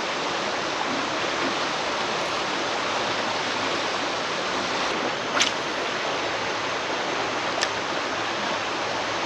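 Shallow river water running steadily over riffles, a constant rushing hiss. Two short sharp clicks stand out, about halfway through and again two seconds later.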